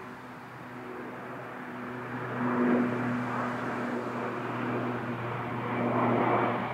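Dash 8 Q400 twin-turboprop airliner passing low overhead: a steady low propeller hum under a rushing engine noise that swells twice, about two and a half seconds in and again near the end.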